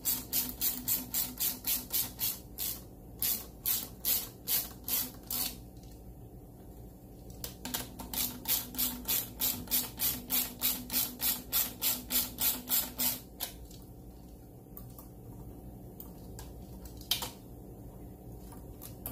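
Ratcheting hand driver clicking as a worm-gear hose clamp on the intake pipe's coupler is tightened, about four clicks a second. It comes in two runs with a pause of about two seconds between them, then a single click near the end.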